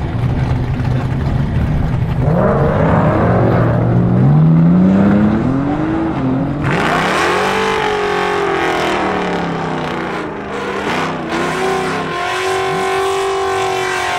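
Cadillac ATS-V and Dodge Challenger drag cars at the line: engines idling, then revving with a rising pitch from about two seconds in. Just before the middle a louder engine opens up at full throttle, its pitch climbing and falling back several times as the cars run down the strip.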